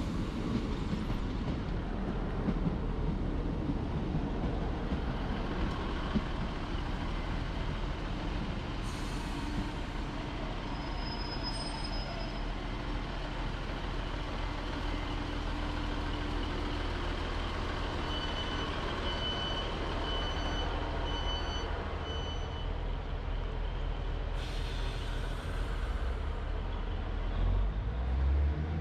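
A diesel multiple unit idles at the platform with a steady low engine drone. Short air hisses come about nine seconds in and again near twenty-five seconds. A run of about five evenly spaced beeps, typical of a door-closing warning, sounds around twenty seconds in, and the engine note rises near the end.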